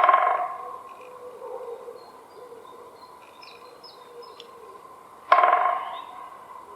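Woodpecker drumming on a dry tree: two short drum rolls of very rapid knocks, one at the start and one about five seconds later, each ringing with the tree's hollow tone. Faint small-bird chirps between the rolls.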